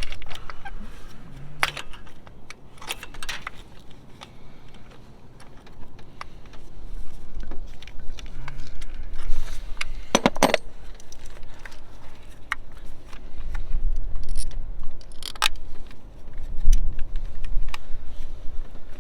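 Scattered small metallic clicks and clinks of hand tools and ignition coil parts being handled while a coil is pushed into place, over a low wind rumble on the microphone.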